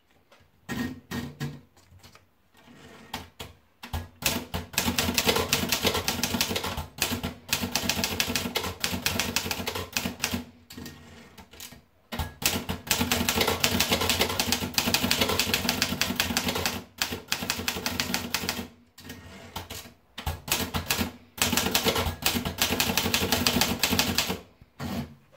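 Torpedo model 18 manual typewriter being typed on in fast runs of keystrokes, a clatter of rapid key and typebar strikes broken by brief pauses every few seconds.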